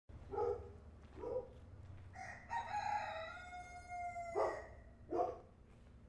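A rooster crowing: two short notes, then one long drawn-out call that sinks slightly in pitch, followed by two more short, sharp notes.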